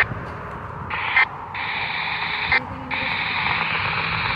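Radio receiver static hiss between transmissions. It cuts out and back in a few times, with short high blips at the cuts.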